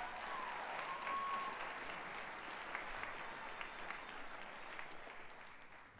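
Audience applauding in a theatre, with a single voice cheering briefly near the start; the applause fades out near the end.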